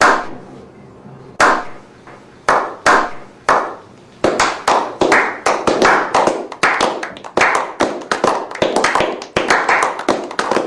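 A slow clap by a small group of men: single claps about a second apart at first, each ringing on briefly, then after about four seconds building into quicker, overlapping applause.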